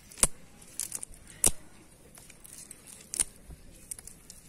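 Cast net being handled by hand: mesh rustling, with three sharp clicks spread over the few seconds and a couple of fainter ones between.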